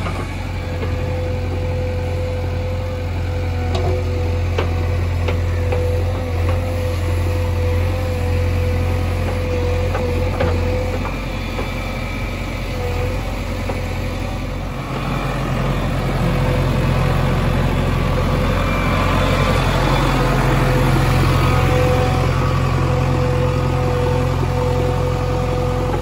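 JCB 3DX backhoe loader's diesel engine running steadily as the backhoe digs and loads mud, with a steady whine over it and a few light knocks. About fifteen seconds in, the engine note steps up and grows louder as the arm works.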